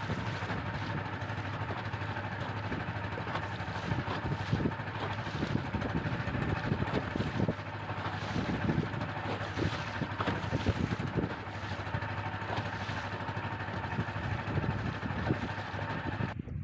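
Small fishing boat's engine running steadily, with a constant hum and irregular knocks and splashes over it.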